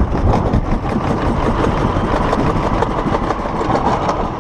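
Summer toboggan sleds running down a stainless-steel trough: a loud, steady rumble and rattle of the wheels on the metal.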